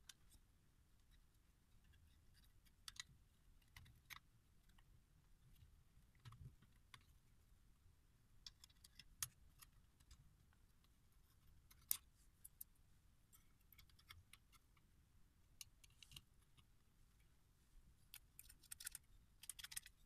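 Faint, scattered small metallic clicks and taps from the internal parts of an open mortise door lock being handled and fitted back together by hand, with a quick cluster of clicks near the end.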